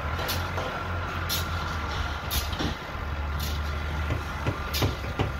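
Diesel engine of the crane holding the rebar, running steadily, with short hissing bursts about once a second. A few sharp knocks come near the end.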